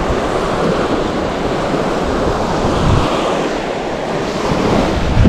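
Small ocean waves breaking and washing up a sandy beach, a steady surf hiss, with wind rumbling on the microphone.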